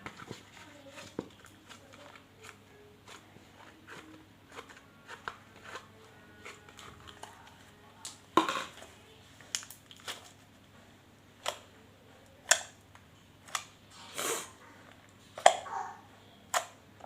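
Homemade slime, still a little stiff, being pressed and squished by hand in a bowl: scattered sticky clicks and snaps, louder and more frequent in the second half.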